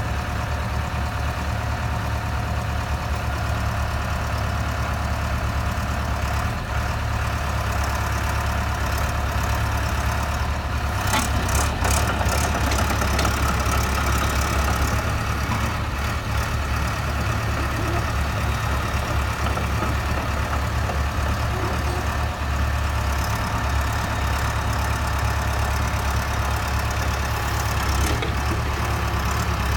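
JCB JS81 midi excavator's diesel engine idling steadily, with a few sharp clicks a little over ten seconds in.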